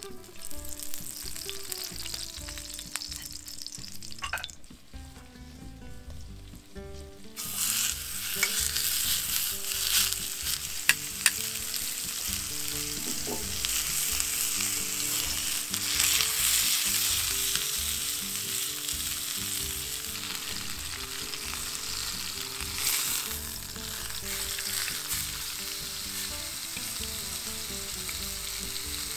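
Food sizzling in a hot cast-iron pot over an open fire. The sizzle starts suddenly about seven seconds in and then runs steadily, with a few sharp clicks near the middle.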